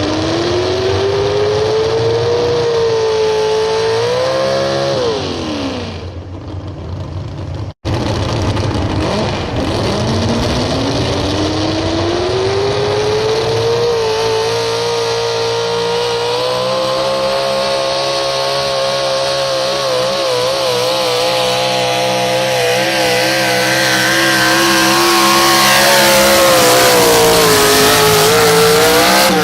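Super stock 4x4 pulling truck's engine at full throttle. It revs up, holds for a few seconds and drops off. It revs up again and holds high revs with a wavering pitch for about fifteen seconds, then falls away at the end.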